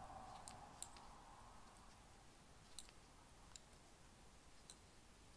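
Knitting needles clicking faintly as stitches are knitted in the round, about five small irregular clicks.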